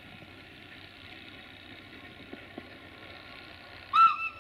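A short toot of the air whistle on a CFR 060-DA (LDE2100) diesel locomotive near the end, one brief blast with its pitch bending up and back down and a smaller second pip. Before it, the faint steady running of diesel locomotives.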